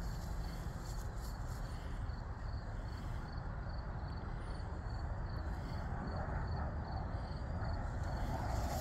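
Crickets chirping in an even rhythm, about two or three high chirps a second, over a louder low steady rumble on the phone's microphone.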